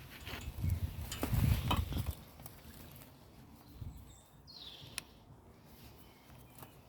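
Knocks and metallic clinks of a hand tool being fitted to and worked on a motorcycle handlebar clamp bolt, busiest in the first two seconds, then quieter with a single sharp click about five seconds in.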